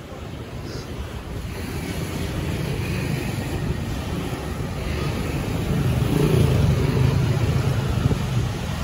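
Road traffic on a busy street, with a motor vehicle's engine coming closer and getting louder from about six seconds in.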